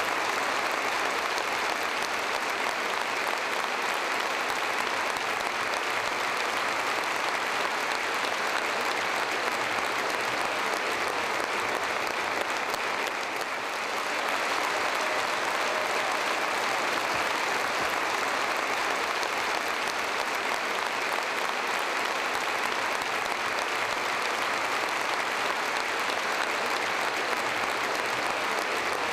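Concert audience applauding, a long steady ovation that briefly softens about halfway through.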